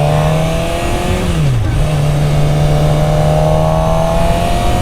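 Suzuki GSX-R600 sportbike engine pulling away and accelerating, its pitch rising, dropping quickly about a second and a half in as it shifts up a gear, then climbing steadily again.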